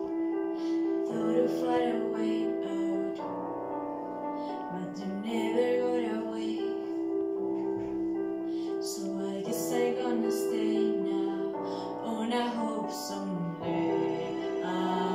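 A girl singing a song over a piano accompaniment, her voice carrying a melody above sustained keyboard chords.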